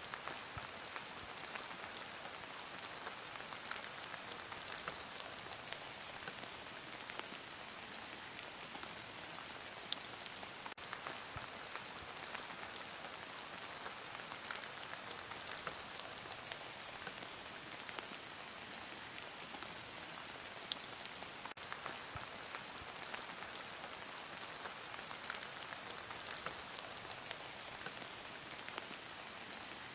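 Heavy rain falling steadily, a dense even hiss scattered with the small ticks of individual drops hitting a surface.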